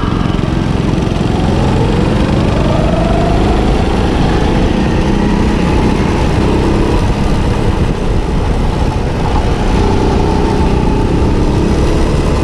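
Go-kart's small engine running under load, its pitch climbing over the first few seconds as the kart picks up speed and then holding steady, under a constant rush of wind and road noise.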